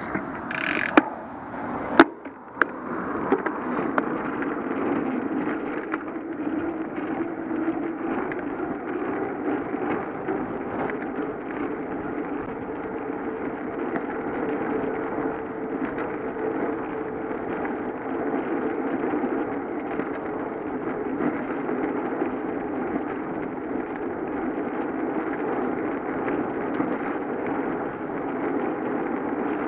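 Bicycle riding along the road: steady tyre rolling and wind noise, with a few sharp clicks in the first couple of seconds.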